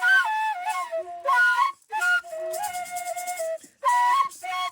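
Solo flute melody in short phrases: notes step down and then hold, with brief breaks between phrases.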